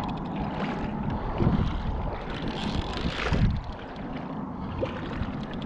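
Wind buffeting the microphone over water, a steady low rumble with stronger gusts about one and a half and three and a half seconds in.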